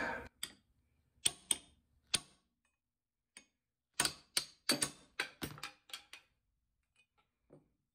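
Hammer striking a steel drift punch set in the eye of a Plumb hatchet head, driving out the old wooden handle: sharp metal taps, a few spaced out at first, then a quicker run of about eight a little past the middle.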